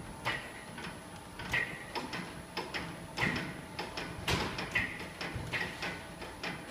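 Carton folder-gluer machine at work, giving irregular mechanical clacks about once or twice a second, many with a brief metallic ring after them.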